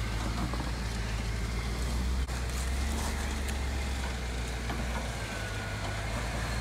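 Hummer H3 4WD's engine running steadily at low revs as it crawls up a rock step.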